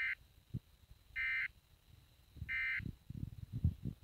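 Weather-radio SAME end-of-message data bursts: three short bursts of warbling data tones about 1.3 s apart, marking the end of the alert. Irregular low crackles and knocks in the second half.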